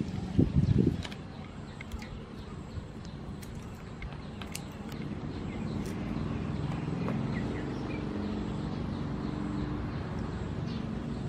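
Kitchen scissors snipping river prawns over a bowl of water, heard as a few sharp clicks. A fly buzzes close by in the first second, birds chirp faintly, and a low steady drone comes in about halfway.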